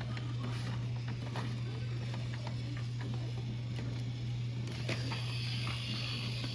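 Toy train running on a wooden track: a steady low motor hum with scattered light clicks. A higher hiss comes in about two-thirds of the way through.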